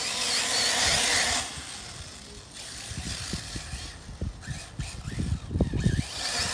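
Arrma Typhon 6S RC buggy's brushless electric motor whining as it drives through thick grass, with a loud hiss that dies down after about a second and a half. Low irregular rumbles and thuds follow.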